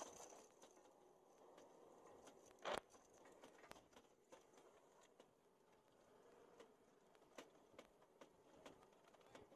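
Faint clinks and rattles of a linked belt of heavy machine-gun cartridges being handled and fed toward the gun, with one louder knock about three seconds in.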